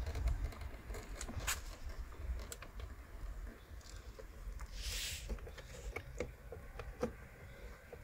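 Small scattered clicks and taps of a plastic pry tool and fingers working at the edge of a car's side-mirror glass and plastic housing, over a steady low rumble, with a short hiss about five seconds in.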